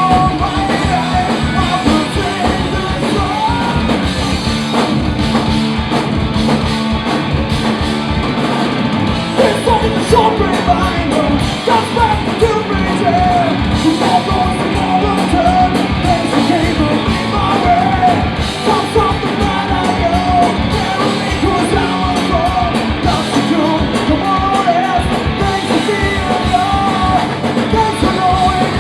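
A punk rock band playing live at full volume, with sung and shouted vocals over the band.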